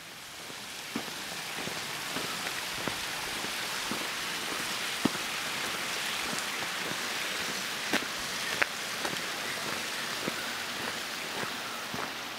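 A steady rushing hiss that swells over the first two seconds, with scattered sharp ticks of footsteps on marble gravel.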